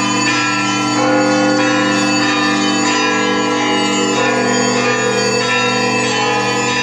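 Russian Orthodox church bells ringing together: deep bells hum on steadily beneath smaller, higher bells that are struck over and over.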